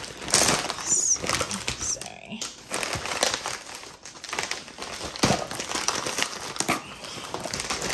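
Black plastic poly mailer bag crinkling and rustling in irregular bursts as shrink-wrapped boxes are slid out of it.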